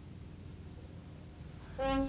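Faint background hiss. Near the end, brass instruments come in with a loud held chord, the start of a music cue.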